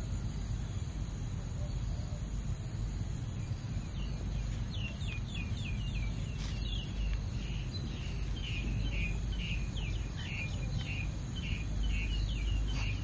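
A small bird chirping, repeating short high notes a few times a second from about four seconds in, over a steady low background rumble and a thin high hiss.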